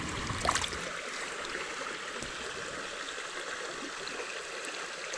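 Fast water of a small creek rippling and gurgling steadily, with a few brief clicks near the start.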